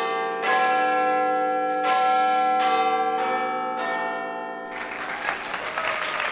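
A run of struck bell-like chimes, each ringing on under the next, with a new strike every half-second to second, like a peal of bells. The chimes stop about three-quarters of the way in, giving way to a steady hiss.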